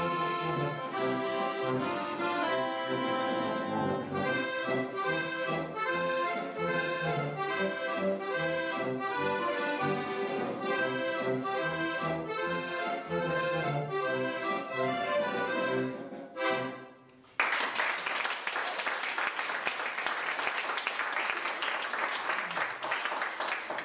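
Accordion orchestra playing a tune over a steady bass pulse, ending on a final chord about sixteen seconds in. The audience then breaks into applause.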